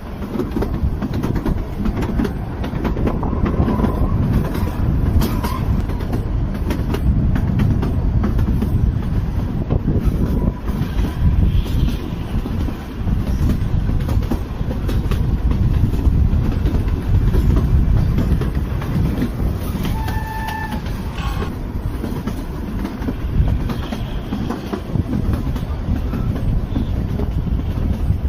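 Kalka–Shimla narrow-gauge toy train running steadily, a continuous low rumble with faint clicks. A short, high tone, lasting about a second, sounds about twenty seconds in.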